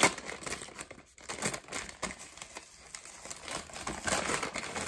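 Paper and plastic packaging crinkling and rustling as it is handled, with a sharp tap right at the start.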